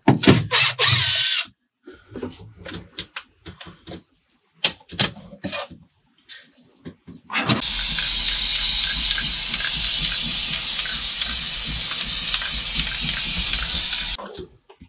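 Aerosol can of spray adhesive hissing steadily for about six and a half seconds as it is sprayed onto carpet, starting about halfway through and cutting off shortly before the end. Before it come a short loud burst at the very start and scattered knocks and handling sounds.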